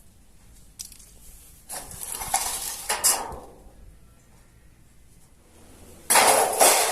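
Small hard objects clattering and clinking as they are handled, in two bursts: one about two seconds in, and a louder one near the end.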